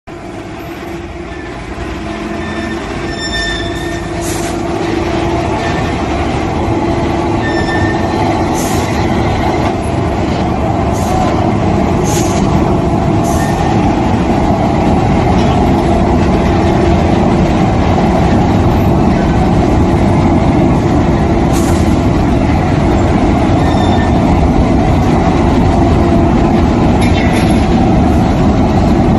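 Solid solution heat treatment furnace line running: a loud, steady mechanical rumble that grows louder over the first several seconds, with a few brief high squeaks or clinks now and then.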